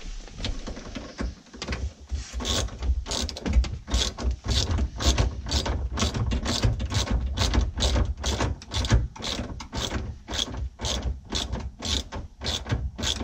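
Ratchet wrench clicking over and over, about three clicks a second, as it snugs the nut onto a VW bus parcel tray bracket bolt under the dash.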